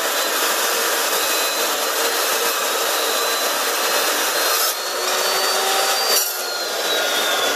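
Evolution S380CPS 15-inch chop saw's blade cutting through steel tube: a loud, steady grinding cut with a thin high whine over it. The whine rises briefly a little before five seconds in, then falls steadily in pitch from about six seconds in.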